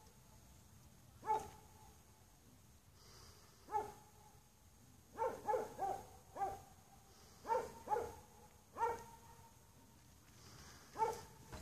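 A beagle puppy yapping: about eleven short, high-pitched barks, some single and some in quick runs of two to four, the busiest stretch coming a little before the middle.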